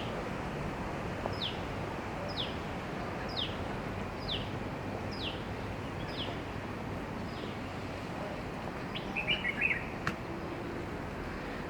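A songbird repeating a short, downward-sliding whistle about once a second over steady background noise. Near the end come a brief burst of quick chattering notes and a single click.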